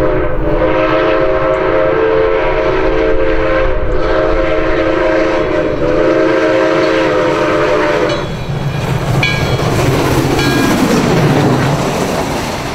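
Southern Railway 630's steam whistle sounding several long blasts for a grade crossing, a chord of several notes at once, which stops about eight seconds in. The steam locomotive and its train then run past close by with a rumble and the clatter of wheels on rail.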